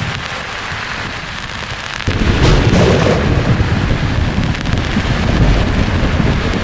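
Steady hiss of sleep-track white noise, with a thunderclap breaking in about two seconds in: a sudden deep rumble with a sharper crack just after, then a long rolling rumble that stays loud.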